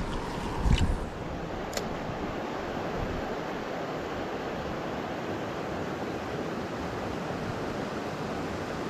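Steady rushing of a high-running creek swollen by recent flooding, with a brief low thump about a second in.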